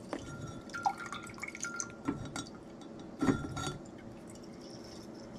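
Lemon juice dripping and spattering from a handheld lemon squeezer through a mesh strainer into a glass measuring cup, with a few small clicks from the squeezer, the loudest cluster about three seconds in.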